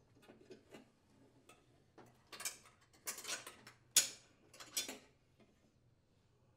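A bungee cord being unhooked and pulled out of a riding mower's dash: a series of light clicks and rattles, loudest between about two and five seconds in.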